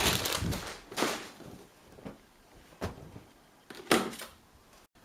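Handling of a Samsung front-loading washing machine: a noisy rustle fades out at the start, then come a few separate sharp clicks and knocks, roughly a second apart.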